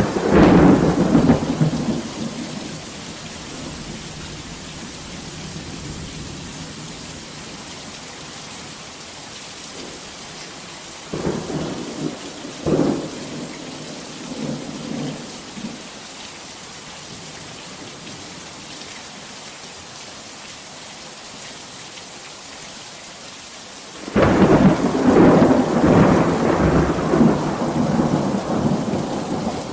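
Steady heavy rain with thunder. A loud rumble near the start fades over a couple of seconds, two short cracks with smaller rumbles follow about halfway through, and a long loud rolling rumble begins about four-fifths of the way in.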